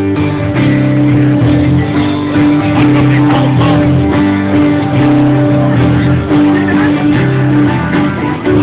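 Guitar strumming chords with a band playing live: loud, steady music with sharp strokes on the strings.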